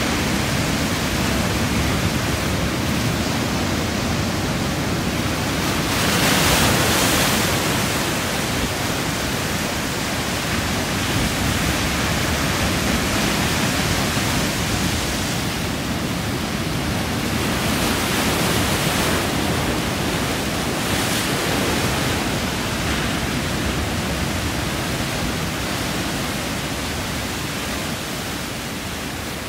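Ocean surf washing in and out around shoreline rocks: a steady rushing hiss of water, with louder swells as waves break, the strongest about six seconds in.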